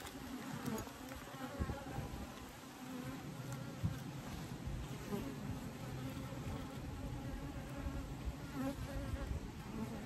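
Many honeybees buzzing around an opened hive: a steady, wavering hum of overlapping wingbeats. The colony is agitated and defensive at being disturbed.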